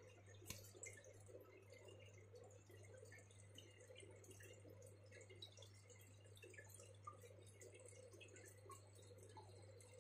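Faint trickling and dripping of water, as from an aquarium filter, with a steady low hum underneath.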